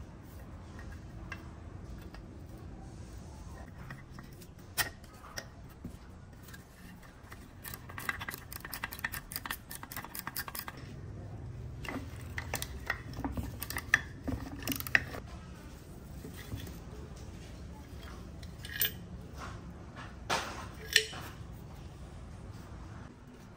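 Metal chainsaw parts and hand tools clinking and knocking on a workbench, with a quick run of clicks about a third of the way in, over a low steady hum.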